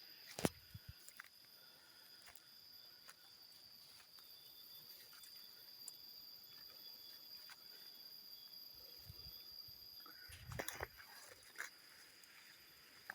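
Quiet forest ambience with a faint, steady high-pitched hum and scattered light clicks. A sharp tick with low thumps comes just after the start, and a short burst of thumps and rustling comes about ten and a half seconds in.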